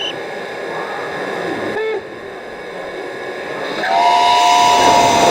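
Train whistle sounding a long chord of several steady tones, starting about four seconds in, over a steady hiss of rail noise.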